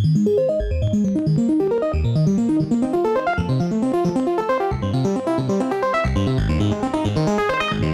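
Sonicware ELZ_1 synthesizer playing on its 8Bit FM engine: a fast sequence of short pitched notes over a quickly stepping bass line.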